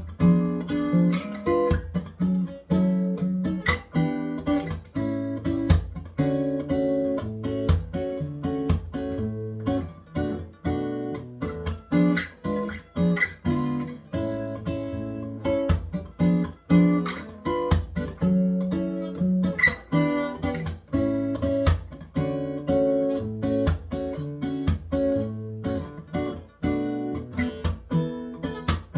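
Taylor 714CE X-braced acoustic guitar played solo, plucking and strumming chords in a steady bossa nova rhythm.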